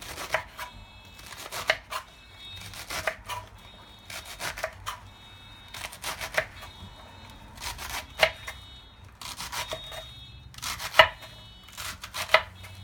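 Knife chopping lettuce on a cutting board, in short runs of a few cuts each about every second or so. The sharpest cut comes about eleven seconds in.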